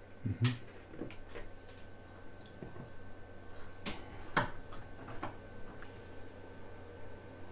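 Scattered small clicks and knocks of a camera being handled while it is refocused, with a low thump about half a second in and a sharp click a little past four seconds, over a faint steady hum.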